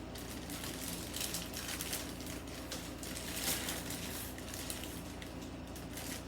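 Packaging being handled and opened: irregular rustling, crinkling and light knocks.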